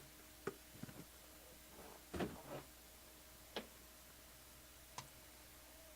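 A few scattered light clicks and knocks over a faint steady hum, the loudest about two seconds in.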